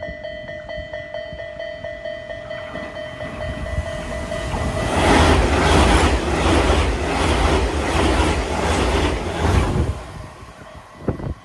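A train passing close by: a loud rumble and rush, with the wheels clattering over rail joints about twice a second, from about five seconds in until it stops sharply near ten seconds. Before the train arrives, a steady high tone sounds, the level-crossing warning signal.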